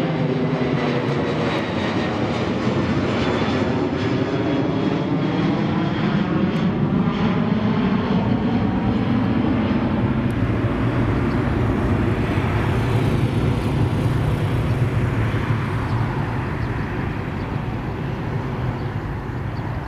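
Twin-engine jet airliner passing low overhead and flying away: a steady jet-engine rush whose tone sweeps as the aircraft goes over, then fades near the end.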